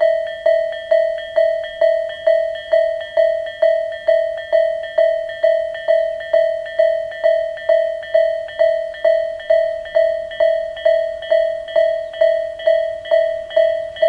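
Japanese railway level crossing's electronic warning bell (Tobu 'sound A' type) ringing, a single struck tone repeated about twice a second, each strike dying away before the next. It sounds while the crossing warns of an approaching train.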